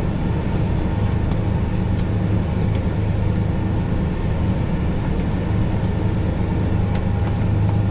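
Fendt tractor engine running steadily under load while pulling a Kverneland round baler through the swath, a deep even drone with a faint steady whine above it.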